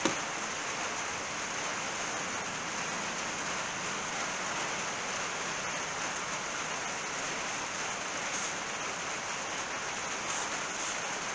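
Steady rain falling on the roof, an even hiss, with a short knock at the very start.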